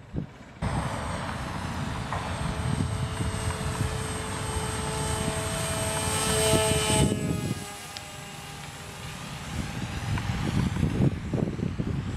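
The HobbyKing Bixler model plane's electric pusher motor and propeller whining as it flies past, growing louder and slightly higher until about seven seconds in, then falling away quickly as it passes and moves off.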